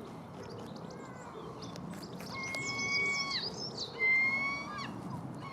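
A bird calling over small crunching clicks from a rabbit chewing a carrot. The bird gives three long, even-pitched whistled notes of about a second each, the first one mixed with a fast high warble, and the second one is the loudest.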